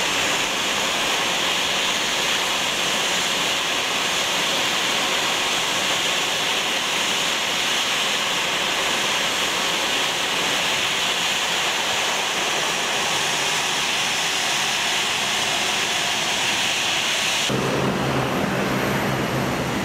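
Steady rushing hiss of jet engines idling on the taxiway, with a faint high whine on top. Near the end it changes suddenly to a deeper engine hum from the Airbus A340-300's four CFM56 turbofans on the runway.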